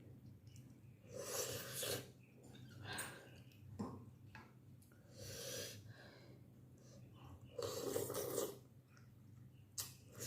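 Slurping of vegetable thukpa noodles and hot broth, several separate slurps with the loudest about eight seconds in.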